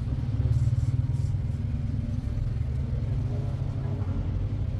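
Steady low engine rumble with a fast, even pulse, running without a break.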